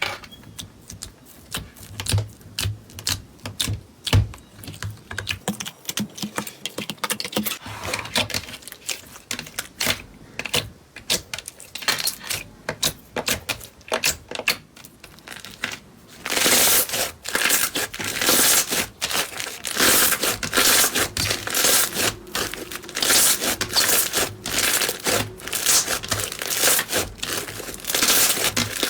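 Slime being squeezed and pressed by hand, making rapid irregular clicks and crackling pops, louder and denser from about halfway through.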